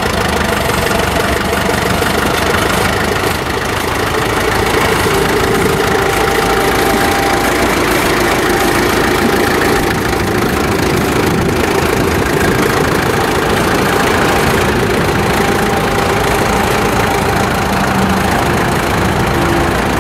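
A 1954 Farmall Super MTA diesel tractor's four-cylinder engine running steadily as the tractor is driven, with a slight rise in loudness about four seconds in. As per the seller, the engine runs on its gasoline starting system only.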